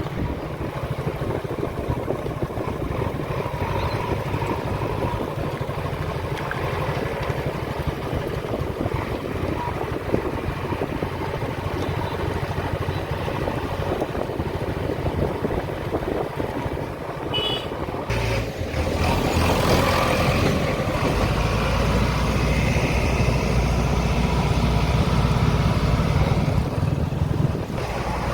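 A vehicle's engine running steadily, growing louder about two-thirds of the way through.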